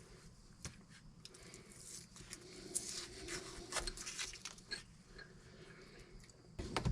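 Masking tape being peeled off freshly painted metal: soft crackling and small ticks, busiest in the middle, with a louder clatter of ticks near the end.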